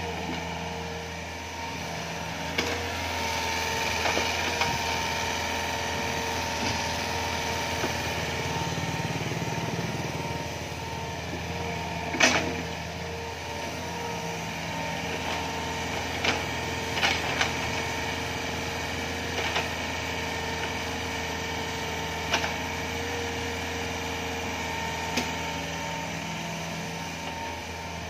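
Hitachi Zaxis 48U mini excavator's Yanmar 4TNV88 four-cylinder diesel running steadily while the machine digs, with sharp knocks now and then as it works, the loudest about twelve seconds in and a quick few around sixteen to seventeen seconds.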